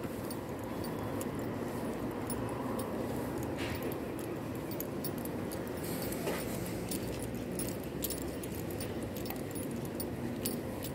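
Steady background noise on a railway station platform, with faint footsteps and scattered light clicks from someone walking along it.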